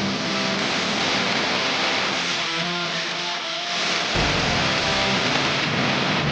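Music track with a dense rushing noise over it, as of anime battle effects; a heavy bass comes in about four seconds in.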